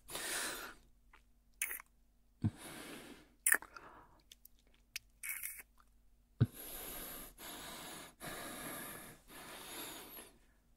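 Close-miked kissing sounds: a handful of short, wet lip smacks between soft breaths, followed in the second half by four slow breaths.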